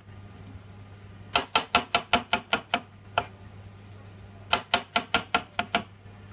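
Chef's knife slicing button mushrooms on a plastic cutting board: two quick runs of knife taps against the board, about six a second, with a single tap between them.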